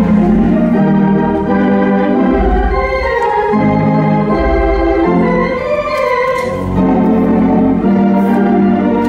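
Mighty Wurlitzer theatre pipe organ being played: full, held chords over a low bass line that moves to a new note about every second.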